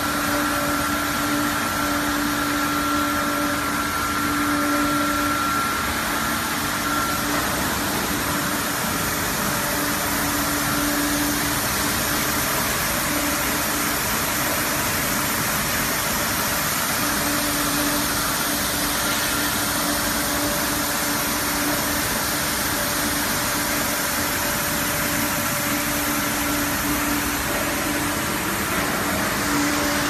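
Automatic bottle brush washing machine running steadily: a constant mechanical whirring noise from its rotating brushes and conveyor, with a low hum that fades in and out.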